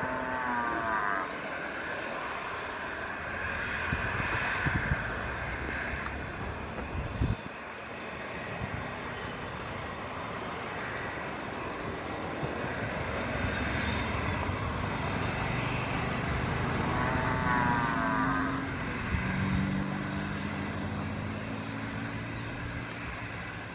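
Airbus A320neo's Pratt & Whitney PW1100G geared turbofan engines running at low taxi power as the airliner rolls along the taxiway: a steady jet whine over a broad rumble. The sound swirls briefly at the start and again about 17 seconds in, and a low hum joins near the end.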